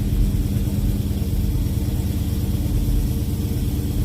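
2017 Dodge Charger Hellcat's supercharged 6.2-litre Hemi V8 idling steadily.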